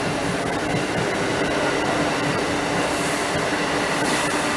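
Amtrak Acela Express trainset passing at speed: a steady rush of wheels on rail with a low hum and faint scattered clicks.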